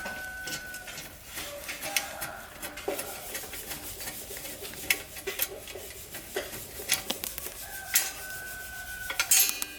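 Light metallic clinks and taps of bicycle parts and tools being handled, with a brief ringing metal tone twice.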